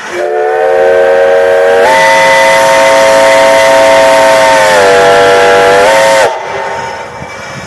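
A steam locomotive's whistle blowing one long blast of about six seconds: several tones sound together as a chord over steam hiss. The pitch steps up about two seconds in, sags briefly near five seconds, and the blast cuts off sharply.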